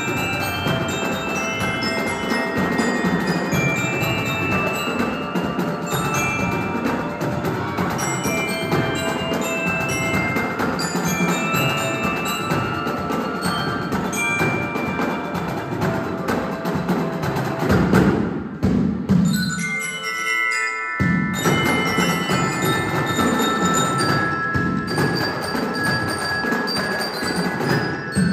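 Marching jazz band playing, with glockenspiels picking out the tune in short ringing notes over drums. The music stops abruptly about twenty seconds in and starts again a moment later.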